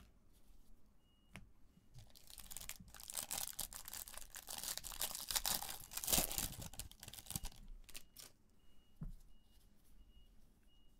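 A 2020 Bowman Draft baseball card pack's wrapper crinkling and tearing as it is ripped open by hand. The sound starts about two seconds in, is loudest around six seconds and stops about seven and a half seconds in, followed by soft handling of the cards.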